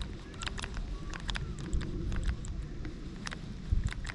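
Light, irregular clicks and ticks from a multiplier (baitcasting) rod and reel being handled while a lure is retrieved, over a low rumble of wind on the microphone. A few louder clicks come near the end.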